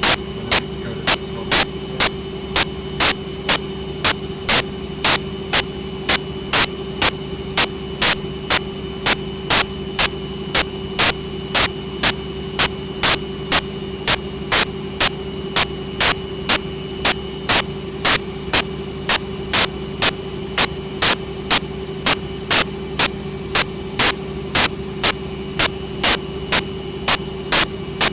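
Servis Quartz 6033 washing machine running with a steady hum and a sharp click repeating evenly, about three times a second.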